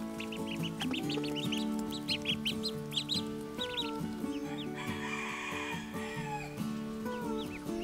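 A flock of ducklings peeping: many short, high chirps in quick succession, densest in the first half and thinning out later. Background music with long held notes runs underneath.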